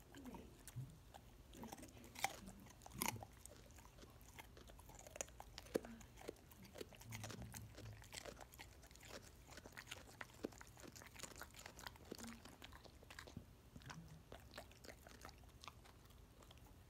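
A pit bull chewing a raw carrot: faint, irregular crunches and wet clicks of teeth on carrot, a few louder crunches about two and three seconds in.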